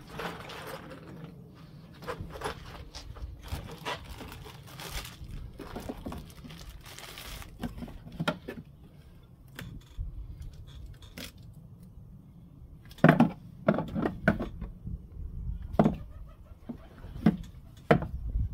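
A small cardboard box of sanding discs and its plastic wrapping are handled and opened, with crinkling and tearing. In the second half come sharper knocks and taps as the box is handled.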